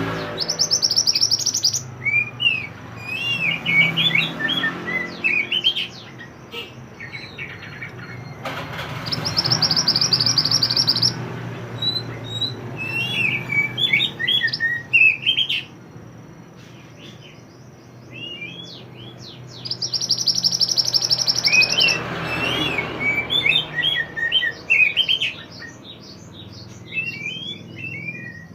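Mantenan (pied bushchat) singing: quick runs of varied chirps and short whistles, broken three times by a long, fast, high buzzy trill.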